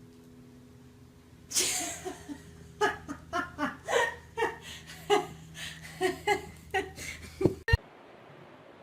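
A person laughing hard in a run of short bursts, starting with a loud outburst and cutting off suddenly near the end. A low steady hum runs beneath at the start.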